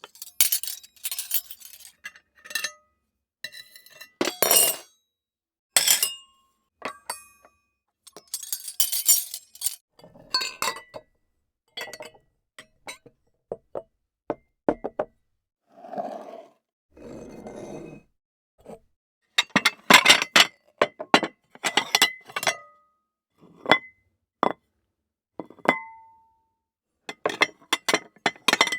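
Table-setting foley: a long run of cutlery and glassware clinks and clatters against dishes and a hard table, many of them ringing briefly. Near the middle come two longer, softer scraping sounds among the clinks.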